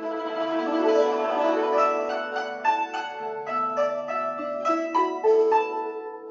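Instrumental Chinese music played on plucked strings, a melody of notes that each ring and fade over held lower notes.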